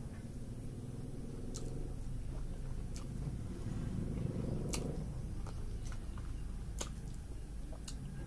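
Someone eating rice and curry by hand, with sharp wet mouth clicks every second or two. Under it runs a steady low rumble that swells a little around the middle.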